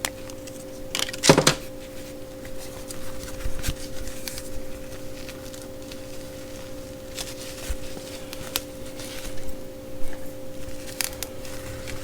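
Gloves and their card packaging being handled: scattered rustling and clicking, with a sharper click about a second in, over a steady hum.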